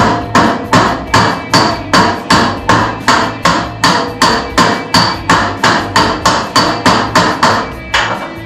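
Body hammer striking a steel fender apron against a dolly around a tack weld: a steady run of sharp, ringing metal blows, about two and a half a second. The hammering draws the sheet metal in tight to the weld.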